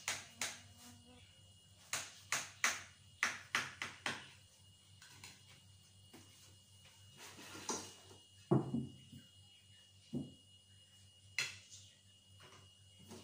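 Metal knife clicking and scraping against a glass baking dish as a baked pie is cut, in a quick run of sharp clicks, then a few more spaced out, with a duller knock about two-thirds of the way through.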